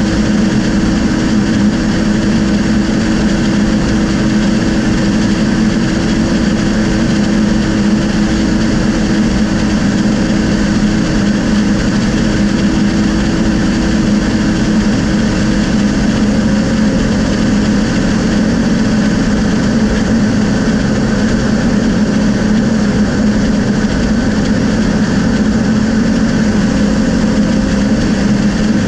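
Light aircraft's engine and propeller droning steadily in flight, a constant low hum that does not change.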